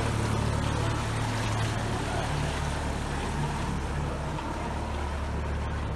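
Small motorboat's engine running steadily at a low pitch.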